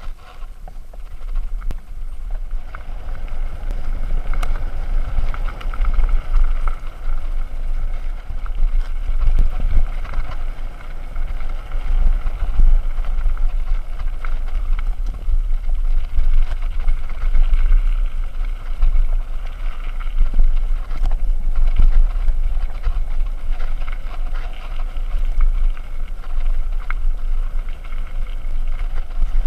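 Canyon Spectral AL mountain bike riding fast down a dirt forest singletrack: a constant deep rumble of wind buffeting the microphone, with tyre noise on the dirt and frequent small rattles and knocks from the bike going over bumps.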